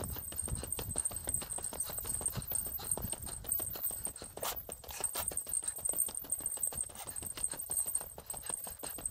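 A hiker's footsteps on a mountain road, a steady walking rhythm of crunching steps. A thin, steady high-pitched tone runs underneath.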